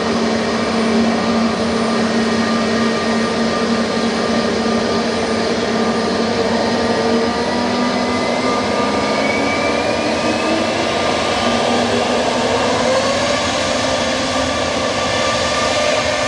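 Airbus A320neo's CFM LEAP-1A jet engines running loudly and steadily. From about halfway the engine whine rises in pitch as the engines spool up.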